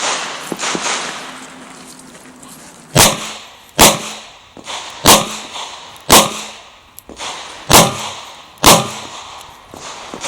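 Six revolver shots from a Chiappa Rhino .40 S&W, fired one at a time about a second apart starting about three seconds in, each with a short echo.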